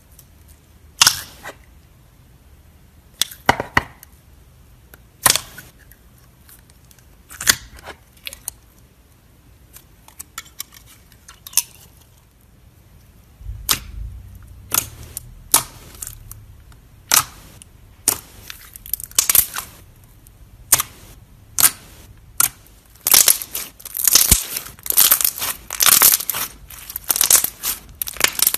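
Clear slime with foil flakes being poked and squeezed by hand, making sharp sticky pops and clicks. At first they come singly every couple of seconds, then they crowd into quick crackling runs near the end.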